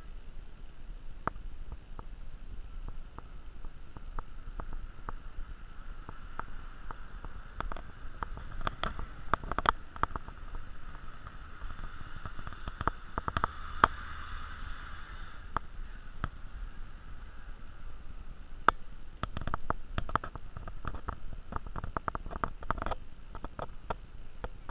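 Irregular sharp clicks and taps, some close together in quick runs, over a low steady outdoor rumble.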